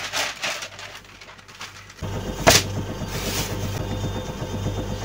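Sheet of parchment baking paper rustling and crackling as it is handled, then a single sharp knock about two and a half seconds in, with a steady low hum underneath from about two seconds on.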